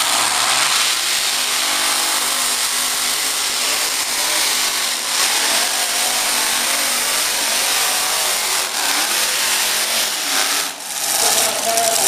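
Unlimited modified pulling tractor's engine running at full throttle under load, loud and steady, with a brief drop in power near the end.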